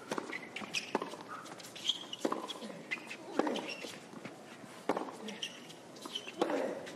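Hard tennis court between points: scattered footsteps and short shoe squeaks of the players, a few sharp ball bounces roughly a second apart, and faint crowd murmur.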